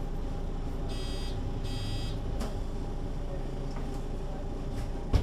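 Mercedes-Benz O 530 G Citaro articulated bus running with a steady low engine hum. About a second in, two short electronic buzzer beeps sound, and a sharp thump comes right at the end.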